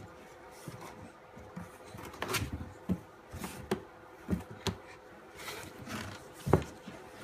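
A baby's hands slapping and patting a large hollow object: about half a dozen irregular soft knocks, the loudest near the end, over a faint steady hum.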